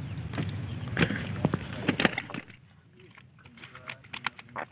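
Scattered knocks and clicks on a small fishing boat, over a low steady hum that cuts off about two and a half seconds in, leaving only a few faint ticks.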